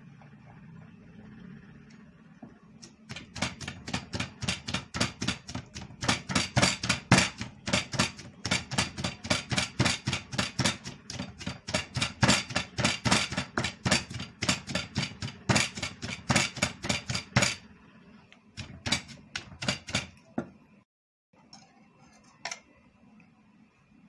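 Wooden pestle pounding in a clay som tam mortar, a steady run of sharp strikes about three a second, mixing the salad ingredients. The pounding starts about three seconds in, stops a few seconds before the end, and a handful of strikes follow before it goes quiet.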